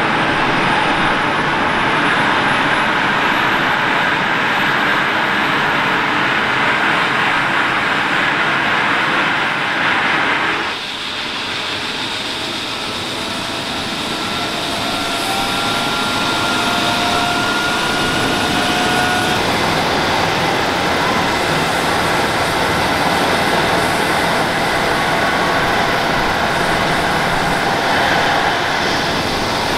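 An Airbus H135 P3 helicopter's twin Pratt & Whitney PW206B3 turboshaft engines running, with its main rotor turning on the ground: a loud, steady turbine whine and rotor noise. The level dips briefly about eleven seconds in, and a couple of faint tones rise slowly a few seconds later.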